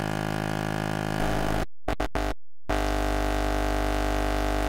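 Electronic synthesizer intro music: a held buzzy chord that shifts about a second in, three short stabs near the two-second mark, then another held chord that cuts off abruptly at the end.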